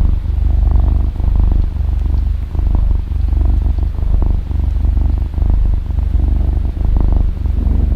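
Cat purring steadily: a low rumble that dips briefly with each breath, about every three-quarters of a second.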